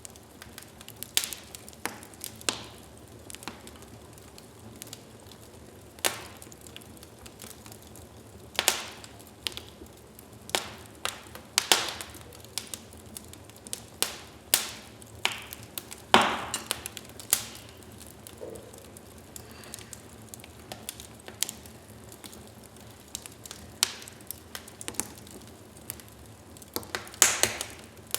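Wood fire burning in a fireplace: a soft steady hiss with irregular sharp crackles and pops, the loudest pop about halfway through and a quick cluster of them near the end.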